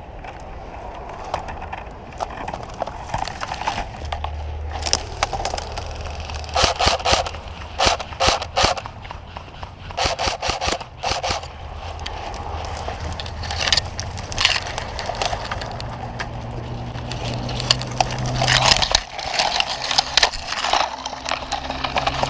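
Crunching and rustling of footsteps moving through dry leaves and brush, in irregular clusters of crackles.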